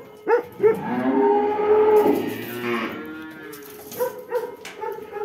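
Jersey cow mooing: one long call of about two seconds that wavers in pitch, with shorter calls before and after it.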